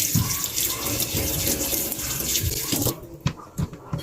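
Water running from a kitchen tap, shut off abruptly about three seconds in, followed by a few light knocks.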